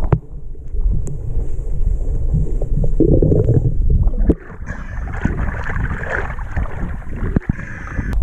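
Muffled underwater rumble and gurgle picked up by a camera submerged beside a boat hull. About four seconds in, the camera breaks the surface and it turns to water splashing and sloshing against the hull as a hand wipes it with a scrubbing pad at the waterline.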